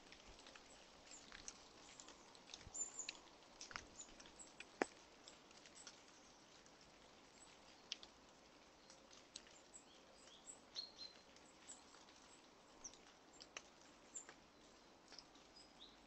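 Red squirrel eating at a seed feeder: faint, irregular clicks and crunches as it handles and bites oats and sunflower seeds. A few brief high bird chirps sound in the background.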